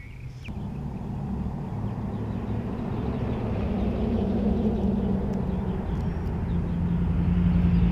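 A steady engine drone that grows slowly louder over several seconds and falls away at the end, like a motor vehicle passing nearby.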